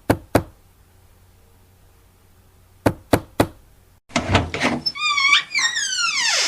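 Knocking: two quick knocks at the start, then three quick knocks about three seconds in, as on a door. About four seconds in, a burst of squeaky, wavering pitched sound effects begins and ends in a long falling glide.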